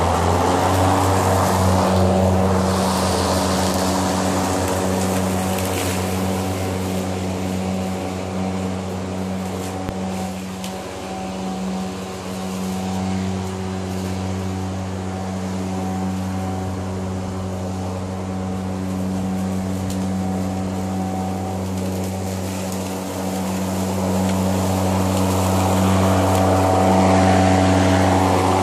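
ECHO 58-volt cordless lawn mower's brushless motor and spinning blade running at a steady speed as it cuts grass: a steady, even electric hum that grows a little louder near the end.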